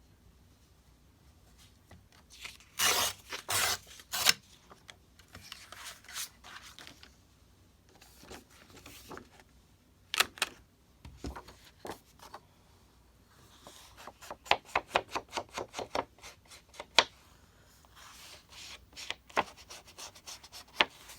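Edges of cardstock being rubbed with an ink pad in short scratchy strokes. There are several loud strokes a few seconds in, and a quick run of short strokes about two-thirds of the way through.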